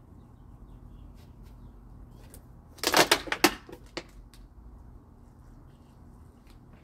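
A brief, loud cluster of knocks and clicks about three seconds in, with a few fainter ticks just after, over faint steady background noise.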